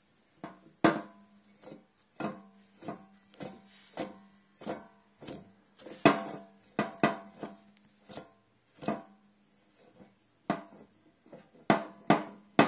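Porsche 996 rear wheel hub flange being turned by hand on its worn wheel bearing, giving a series of metallic knocks, one or two a second, each ringing on after it. The bearing is badly worn.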